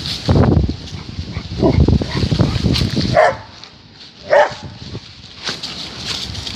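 Labrador retrievers giving two short, high yelping barks about three and four seconds in, with low rumbling noise before them.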